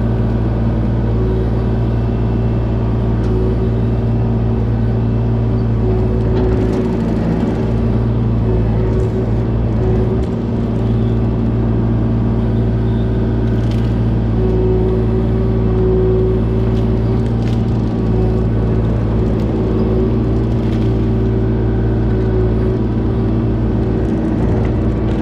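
Kubota KX040 mini excavator's diesel engine running steadily under hydraulic load, with a few faint knocks.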